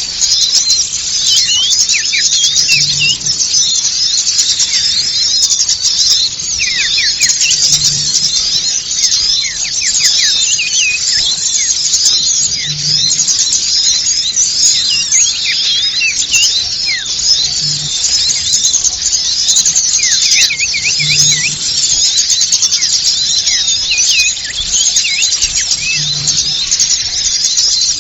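A dense chorus of many small songbirds chirping and calling all at once, short high-pitched chirps and quick pitch glides overlapping without a break: the noisy flock commotion used as a bird-trapping lure call.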